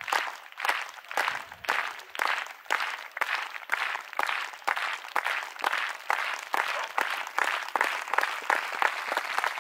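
Spectators clapping in a steady slow rhythm, about two claps a second, to drive a high jumper through his run-up.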